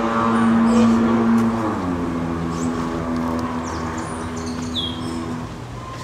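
A motor engine runs steadily, drops in pitch about two seconds in and slowly fades. A few short, high bird chirps sound over it.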